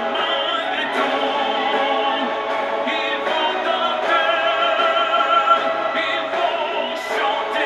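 Orchestral pop ballad: an ensemble of violins and cellos playing sustained, vibrato-rich lines with a choir singing.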